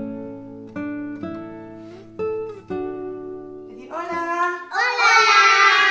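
Intro music on acoustic guitar: single plucked notes, each ringing out and fading, about every half second. About five seconds in, loud children's voices come in over it.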